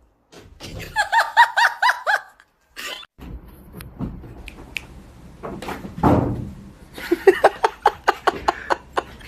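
A person laughing in quick high-pitched bursts, once about a second in and again near the end, with a short noisy bump in between.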